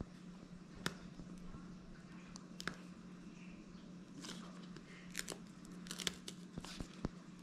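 Faint crinkling, tearing and small clicks of a thin plastic backing strip being picked at and peeled off the adhesive ring of a chloride-extraction test sleeve, coming in scattered short crackles that grow more frequent in the second half, over a steady low hum.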